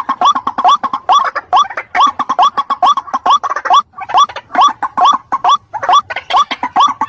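White-breasted waterhen (ruak-ruak) calling: an unbroken series of short notes, each rising in pitch, about three a second.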